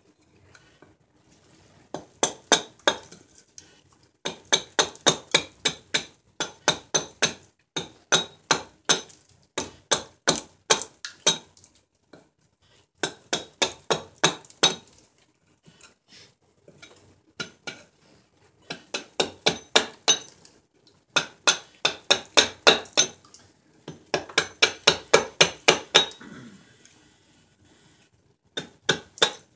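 Wooden club repeatedly striking the back of an axe set into a silver birch blank, batoning the blade down through the wood. Sharp knocks come in bursts of about half a dozen to a dozen, roughly five a second, with short pauses between bursts.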